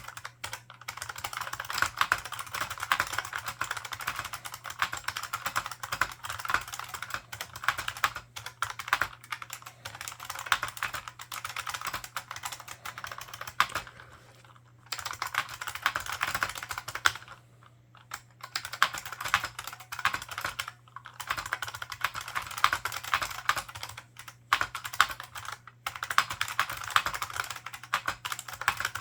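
Continuous fast typing on an IBM 4683 ANPOS keyboard's membrane buckling spring switches with PBT dye-sublimated keycaps: a dense run of key clacks, broken by a few short pauses. A faint steady low hum lies underneath.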